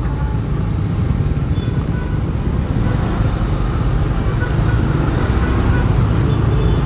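Steady riding noise from a motorcycle in traffic: a continuous low engine and road rumble with no horn or other distinct sound standing out.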